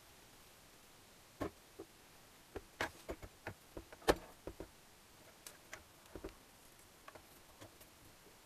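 Irregular light metallic clicks and taps as small engine parts are handled and fitted in the open aluminium crankcase of a Gilera Sport 150 engine, with a sharper knock about four seconds in.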